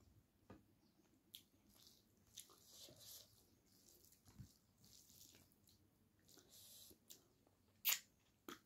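Quiet, wet squishing of rice and curry being mixed by hand, with chewing and small mouth clicks, and one sharp smack near the end as a handful goes into the mouth.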